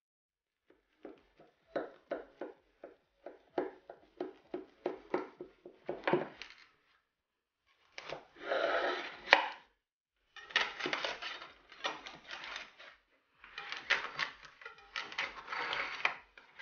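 Knife cutting through the baked crust of a gibanica in its baking pan: a run of quick, sharp crackles in the first six seconds, then three longer stretches of crackling as the blade saws along the cuts.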